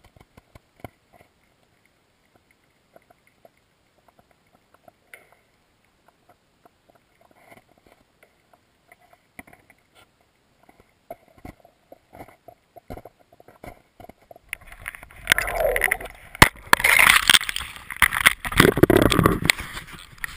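Underwater GoPro housing beneath lake ice picking up faint scattered clicks and ticks, then, about fifteen seconds in, a sudden loud rush of water sloshing and gurgling around the housing, with knocks and rumbles, that runs on to the end.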